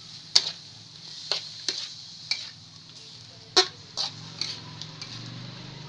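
Metal spatula clinking and scraping against a metal wok as chunks of chicken are stirred: about seven sharp, irregular strikes, over a steady faint hiss.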